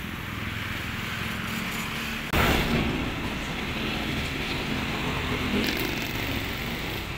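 Garbage dump truck's engine running steadily at idle, a low hum. About two seconds in the sound jumps suddenly louder and brighter, then settles back into the steady engine hum with street noise.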